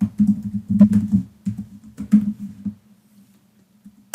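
Computer keyboard typing: quick runs of keystrokes for about three seconds, then a pause and a single keystroke near the end, over a faint steady hum.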